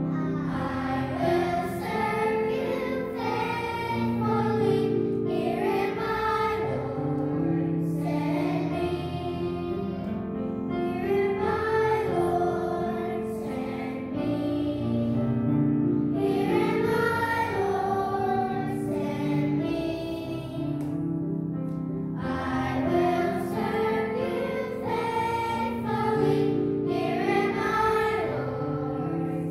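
Children's choir singing in unison over instrumental accompaniment that holds long sustained notes.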